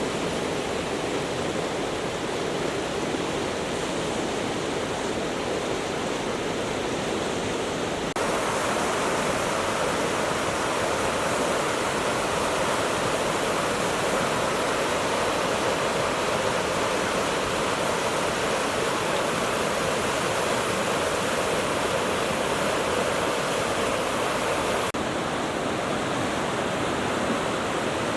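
Chūbetsu River, a mountain river, rushing steadily over rocks; the sound changes abruptly about a third of the way in, becoming brighter and a little louder, and changes back near the end.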